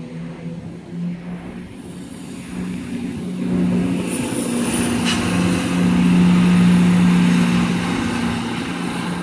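Class 170 Turbostar diesel multiple unit pulling out. Its underfloor diesel engines give a steady low drone that grows louder from about three seconds in, then eases slightly. There is a sharp click about five seconds in.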